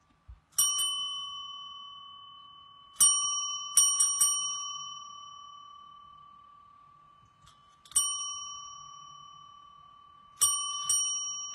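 Service bell struck by a cat's paw: about seven dings in small groups, some in quick succession, each ringing on and slowly fading.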